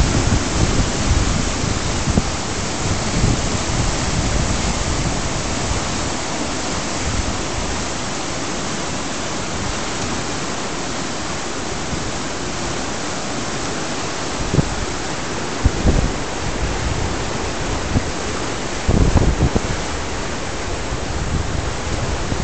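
A flooded river's brown water rushing and churning through whitewater rapids, a steady loud rush of water with a few short low bumps on the microphone in the second half.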